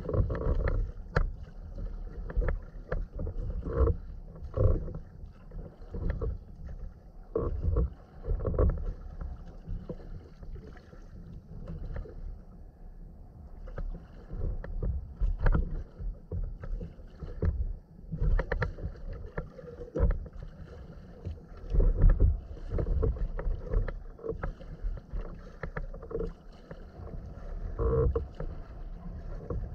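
Sea kayak under way: water splashing and lapping against the hull as it is paddled, in irregular bursts, with deep rumbles of wind on the microphone.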